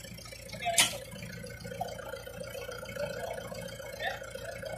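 Faint, indistinct men's voices over a low rumble, with one sharp knock about a second in.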